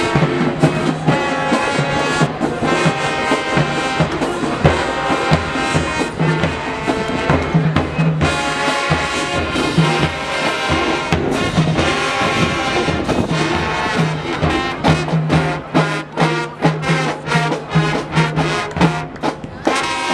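High school marching band playing, a brass section of trumpets and trombones holding loud chords over drums, with the drum hits coming thicker in the second half.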